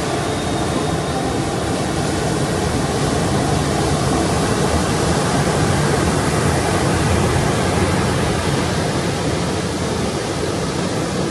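Typhoon-swell surf breaking on the shore, a loud, steady rushing noise with no distinct crashes.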